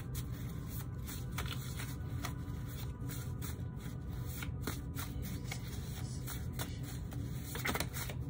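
A deck of oracle cards being shuffled by hand: a run of quick, soft flicks and slides as the cards are pulled through one another, over a steady low hum.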